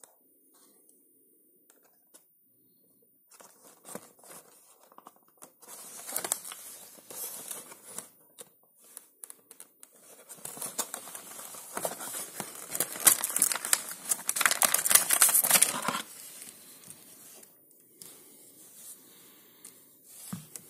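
Cardboard packaging of a folding tablet stand being opened and the stand pulled out: irregular scraping, tearing and crinkling of packaging, starting after a few quiet seconds, loudest in the middle and dying down near the end.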